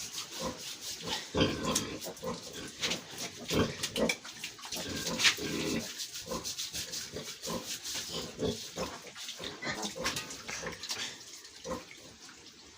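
Pigs grunting, mixed with scattered short knocks and scrapes, the loudest about a second and a half, three and a half, and five seconds in.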